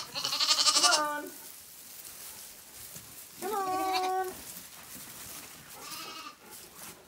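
Zwartbles lambs bleating: a quavering call in the first second, a louder, clear steady bleat about three and a half seconds in, and a faint one near six seconds.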